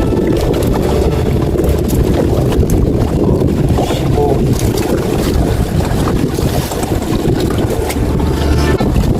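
Small leisure motorboat running under way: a steady low rumble and water noise, with wind buffeting the microphone.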